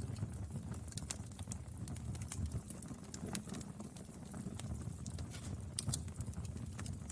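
Wood fire burning: a steady low rumble of flames with frequent sharp, irregular crackles and pops of burning wood.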